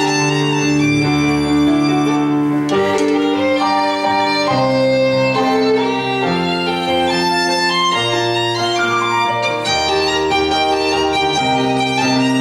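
Violin playing the melody of an instrumental interlude over keyboard accompaniment, with held low notes changing every couple of seconds.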